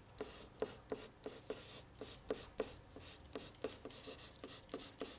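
A pen writing by hand on paper: faint, quick scratching strokes and small taps, several a second, as a word is written out letter by letter.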